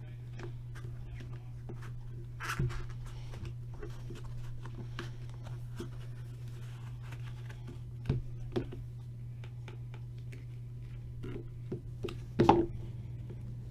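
Hands handling trading cards and their packaging: scattered light clicks and rustles, with a few louder knocks and crinkles, the loudest near the end, over a steady low hum.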